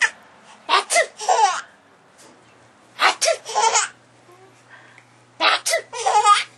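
Nearly nine-month-old baby laughing in three short bursts, a few seconds apart.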